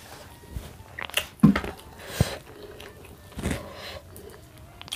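A man chewing a mouthful of food close to the microphone, in irregular bites and chews, a few louder than the rest.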